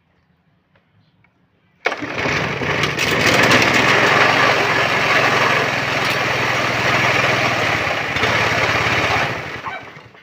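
Lawnmower's small engine cold-starting: it catches suddenly about two seconds in and runs steadily and loudly for about seven seconds. Near the end it winds down as it is cut short.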